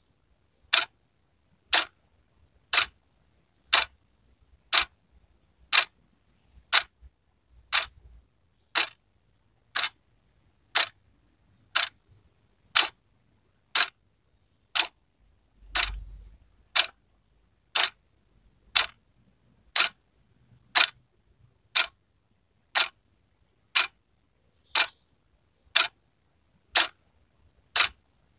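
Wall clock ticking steadily, one crisp tick a second.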